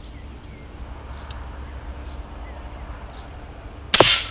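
Faint bird chirps over quiet outdoor background, then near the end a single sharp, loud shot from an FX Airguns Panthera 700 PCP air rifle in .22 firing a slug.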